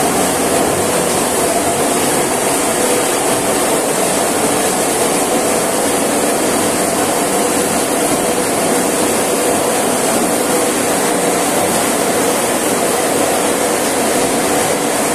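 A fruit-pulp processing line running: its motors and the stainless-steel elevator conveyor give a loud, steady mechanical drone, mixed with the hiss of a water spray washing the fruit on the belt.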